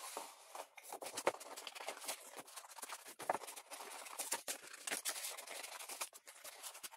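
Scissors cutting through a sheet of paper: a dense, irregular run of crisp snips mixed with the rustle of the paper being turned in the hand.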